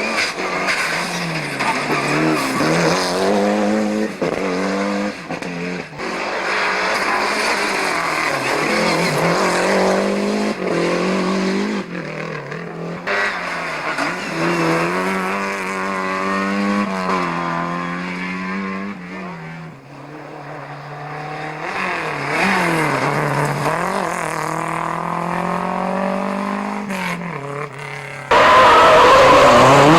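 Rally cars' engines revving hard and climbing and dropping in pitch through gear changes as the cars drive a special stage one after another.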